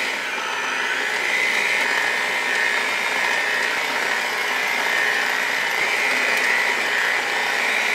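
Cuisinart seven-speed electric hand mixer running steadily at low speed, its beaters working flour into a thick batter; a steady high motor whine over a whirr.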